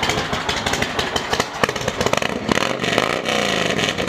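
Motorcycle engine running and being revved; about three seconds in the revs drop and climb again.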